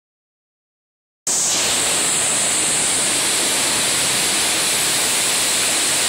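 Swirling water fountain: a large volume of water pouring and rushing through a whirlpool bowl, a steady, hissing rush that comes in suddenly about a second in.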